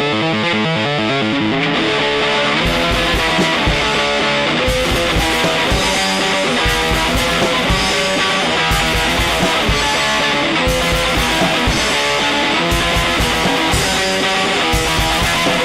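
Punk rock band playing an instrumental passage: electric guitar alone at first, then bass and drums come in about two and a half seconds in, with a steady beat and cymbals.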